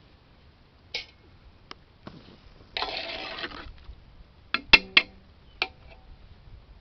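Metal ladle stirring gravy in a large metal cooking pot: a brief sloshing swish, then several sharp ringing clinks as the ladle knocks against the pot.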